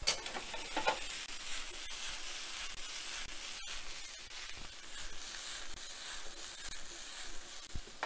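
Vegetables sizzling in a hot skillet as the pan is pulled out, tossed and slid back in, with short scrapes of the pan near the start and about a second in.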